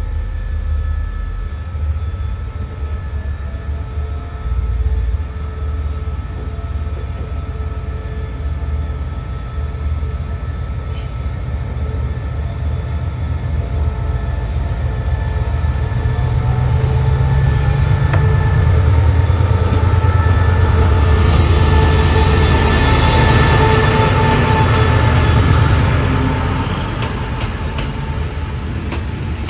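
Special express train hauled by a QSY diesel-electric locomotive pulling out of the station: engine running under power with steady tones, and the rumble of the train building up about halfway through, then easing off near the end.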